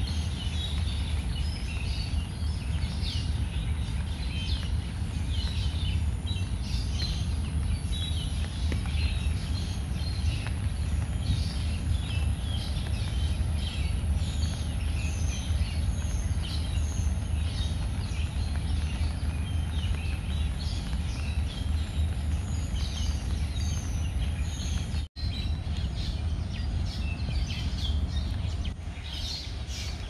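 Many small birds chirping and calling over and over, over a steady low rumble; the sound cuts out for an instant about 25 seconds in.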